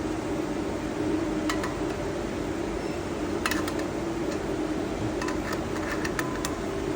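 Steady hum of shop machinery or a fan, with a few light metallic clinks of parts or tools being handled, several of them between about three and a half and six and a half seconds in.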